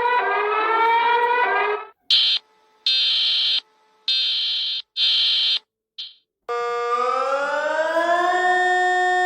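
Emergency alert system alarm tones, cut one after another: a slowly rising siren tone that stops about two seconds in, then a run of loud high-pitched beeps, each under a second long, and from about six and a half seconds a siren wail that rises in pitch and then holds steady.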